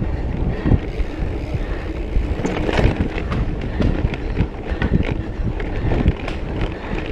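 Mountain bike rolling fast over a dirt singletrack: wind buffets the microphone over tyre noise, with a steady run of short rattles and knocks as the bike bounces over bumps.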